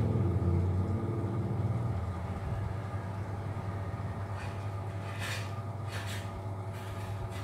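Black-and-white domestic cat purring: a steady low rumble, a little louder in the first two seconds, with a few brief soft rustles in the second half.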